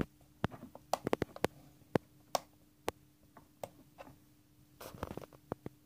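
A string of small, irregular clicks from the push buttons and adjustment knob of a kit digital oscilloscope being worked, with a short run of clicks about five seconds in. A faint steady hum sits underneath.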